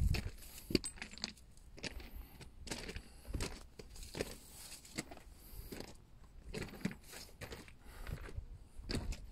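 Footsteps crunching on a loose white stone gravel path, about one to two steps a second, each a short sharp crunch.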